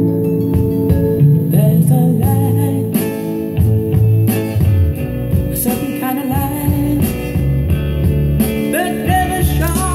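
Recorded guitar-led pop music playing through hi-fi loudspeakers in the room.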